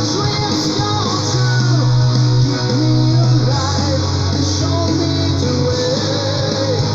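Melodic metal music: a recorded track with electric guitars, a steady bass line and a melodic lead line.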